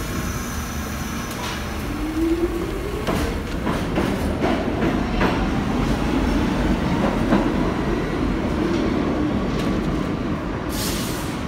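New York City subway train pulling out of the station, its traction motors whining as it accelerates, with a low rumble and wheels clicking over rail joints. A short hiss near the end.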